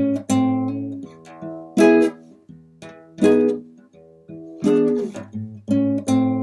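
Acoustic guitar played fingerstyle: plucked notes and chords in a slow, even pattern, each one struck sharply and left to ring out and fade.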